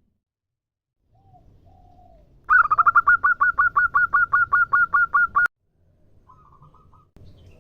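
Female zebra dove (perkutut) calling: a loud, rapid run of short, even cooing notes, about six a second for three seconds, that cuts off suddenly. Two faint low notes come before it, and a shorter, fainter run follows near the end.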